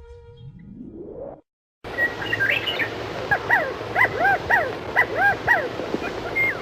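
A rising whoosh cuts off into a short gap. About two seconds in, quail start calling: a string of short, arched calls, about two a second, over a noisy background.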